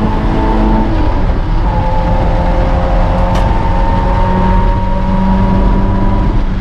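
Car engine running hard, heard from inside the cabin, its note climbing slowly and steadily over a constant low rumble of road and wind noise.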